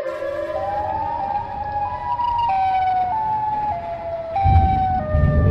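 Siren Head siren-call sound effect: a siren wail that rises in pitch, then steps down through a string of held notes. A deep rumble comes in about four and a half seconds in.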